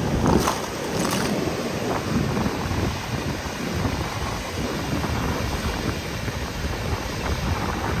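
Caspian Sea surf breaking and washing up a sandy beach, with wind rumbling on the microphone throughout.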